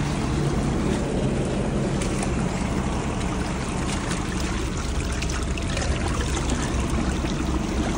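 Water running steadily out of a field drain pipe that has just been cleared of a blockage of tree roots, with an engine running low underneath.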